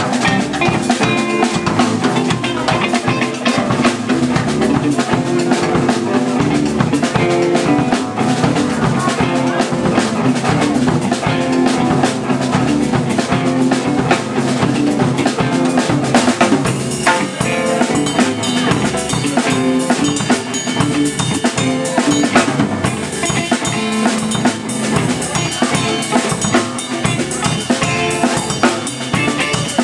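Live rock band playing loud: a drum kit with bass drum and snare hits over electric guitars.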